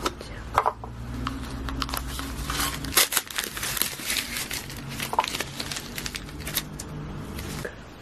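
Crinkling and crackling, like material being handled, as a dense irregular run of small clicks over a low steady hum. Both stop shortly before the end.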